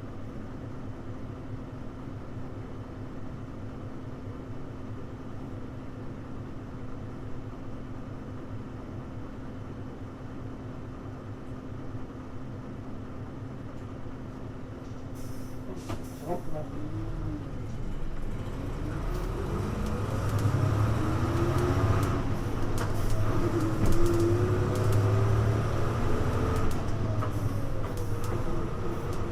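Hino U-HU2MLAA diesel city bus, heard from inside: the engine runs steadily at a low idle for about sixteen seconds, then the bus pulls away, the engine and drivetrain pitch rising and falling through the gears as it grows louder. This is a bus known for an unusual running sound, here fairly subdued.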